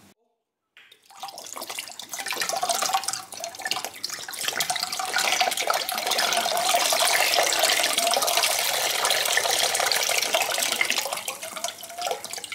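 Vinegar pouring in a steady stream from an upturned glass bottle into a stainless steel saucepan, splashing into the liquid already in the pan. It starts about a second in and eases off near the end.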